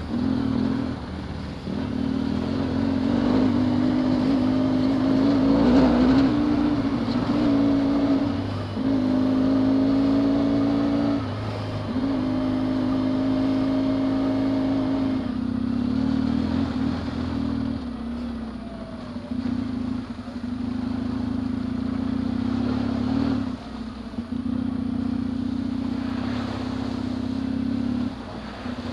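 Yamaha XTZ750 Super Ténéré's parallel-twin engine running under way on a dirt track, its pitch holding steady for a few seconds at a time with several short breaks where the revs drop and pick up again.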